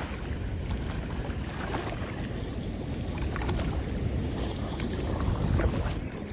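Steady rush of water pouring through a spillway, with wind buffeting the microphone.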